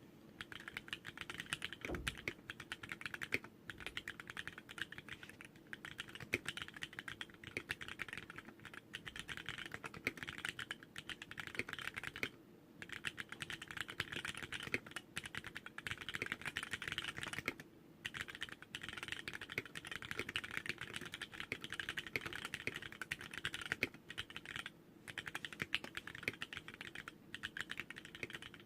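Fast, continuous typing on a TX60 custom mechanical keyboard with a brass plate, Cherry MX Vintage Black linear switches on 65 g springs, and graphite white keycaps. Rapid key strokes run on with three brief pauses.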